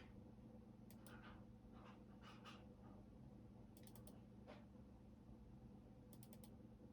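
Faint computer keyboard typing: a few scattered keystrokes, some in quick runs of three or four, over a steady low hum.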